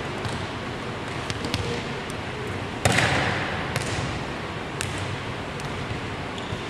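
A volleyball being struck and bouncing on a hardwood gym floor. One loud smack about three seconds in echoes through the gymnasium, with lighter ball hits and bounces before and after it.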